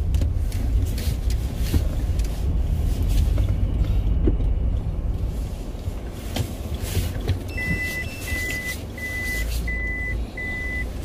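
Car's engine and road rumble heard from inside the cabin. About three-quarters of the way in, a short chime is followed by a regular string of short, high, same-pitched beeps, a little more than one a second: the car's reversing or parking-sensor warning as it is put into reverse to manoeuvre.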